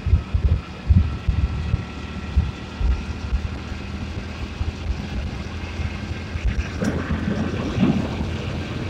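Motorcycle engine running steadily at cruising speed, with wind buffeting the microphone in irregular gusts. About two-thirds of the way in, a rougher rushing noise joins.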